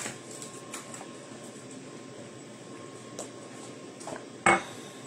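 Quiet room tone with a faint steady hiss and a few faint ticks, broken by one short, sharp knock near the end.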